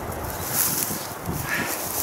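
Wind buffeting the microphone, an irregular low rumble with a brief hiss about half a second in.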